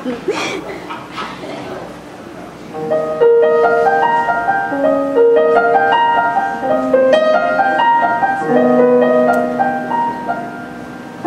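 Solo piano playing the slow introduction to a ballad, sustained chords under a melody line, starting a little under three seconds in.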